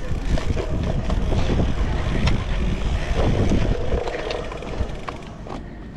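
Cyclocross bike descending a dirt bank at speed: wind buffeting the microphone, and tyres and frame rumbling and rattling over rough ground, easing after about four seconds as the course flattens out.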